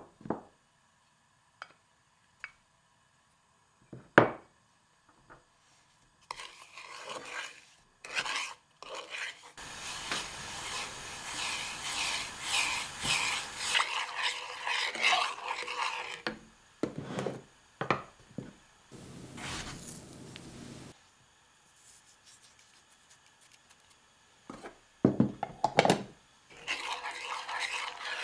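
Wooden spatula stirring and scraping sugar and melting butter in a frying pan, rubbing in spells with pauses between them. Two sharp knocks come in the first few seconds.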